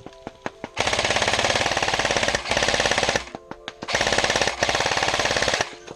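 Airsoft electric gun (AEG) firing long full-auto bursts, a rapid even rattle of shots: a burst starts about a second in, breaks off briefly around the middle, and another runs until just before the end. Faint background music lies under the gaps.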